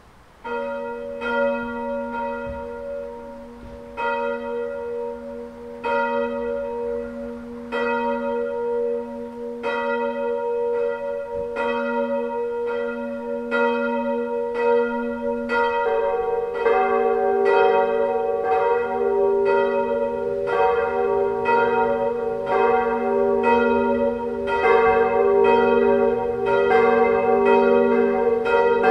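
Four 1949 Weule hard cast iron church bells (D, F, G and B-flat) swinging in a partial peal, beginning to strike just after the start and building up as further bells join about halfway through and again later. The bells' strike notes are noticeably out of line with one another, a peal the uploader expects to fail before long.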